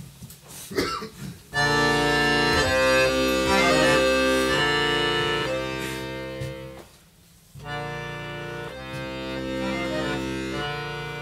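Piano accordion playing held chords with a melody moving over them, coming in about a second and a half in. It stops briefly a little past the middle, then starts again.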